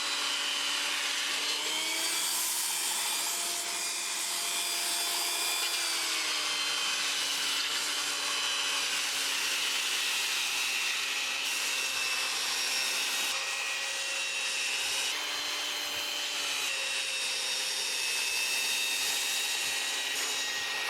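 Electric belt sander running against wood, a steady motor whine with the grit rasping on the board. The pitch rises about two seconds in and drops back a few seconds later as the pressure on the sander changes.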